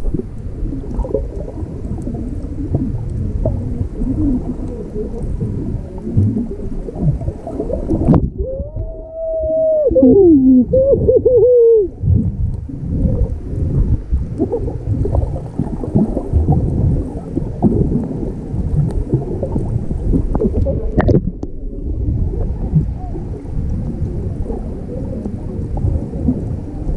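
Muffled underwater noise of water moving and bubbling around a submerged camera, with low rumbling and small knocks. About eight seconds in, a loud wavering tone slides down and back up for roughly four seconds.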